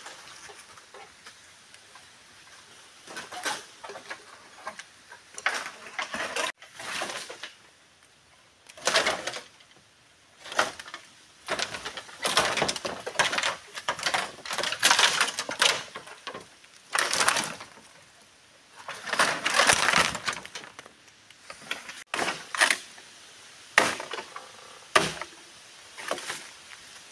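Footsteps crunching through dry bamboo leaves and twigs, with rustling and a few sharp snaps, coming in irregular bursts separated by short pauses.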